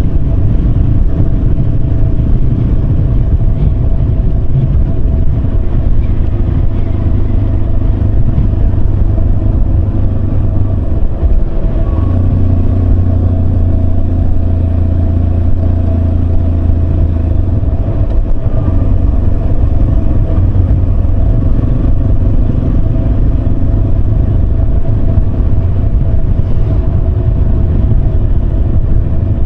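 Yamaha Serow 250's air-cooled single-cylinder engine running steadily while riding, with road and wind noise. Its low note grows stronger from about twelve seconds in and eases back around eighteen seconds.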